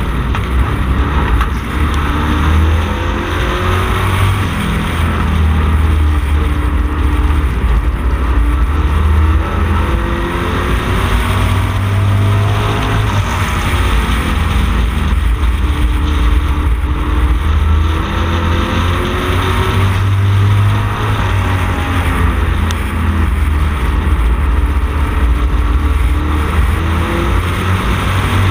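Camaro street stock race car's engine at racing speed, heard from on board, its note climbing under throttle and dropping off for each corner, over and over lap after lap.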